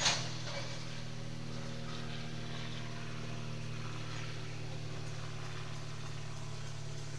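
Freight train tank cars rolling slowly past a grade crossing, heard from inside a car. There is a sharp metallic clank at the very start, then a steady low rumbling hum with a few faint ticks.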